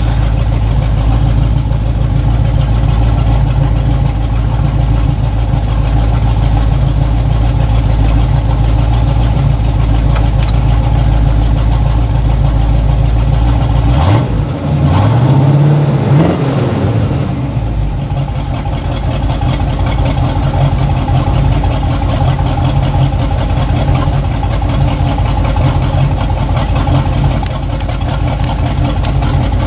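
1984 Chevy K20 pickup's carbureted engine idling steadily. About halfway through it is revved once, rising and falling back over a few seconds, then settles back to idle.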